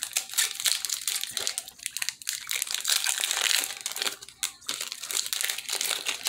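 Foil wrapper of a Pokémon Evolving Skies booster pack crinkling and tearing as it is opened and the cards are pulled out, with many small sharp crackles. The crinkling is thickest about halfway through.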